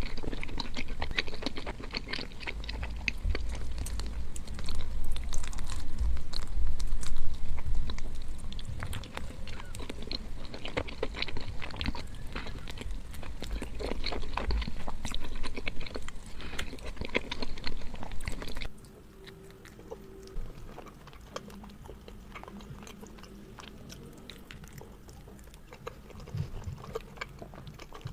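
A person chewing and biting food close to the microphone, with wet mouth clicks and smacks. About two-thirds of the way in, the sound drops suddenly to a quieter recording of the same kind of chewing.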